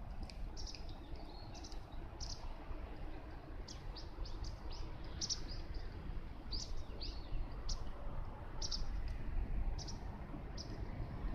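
Small birds chirping, short high calls repeated every second or so, some sliding downward, over a steady low rumble.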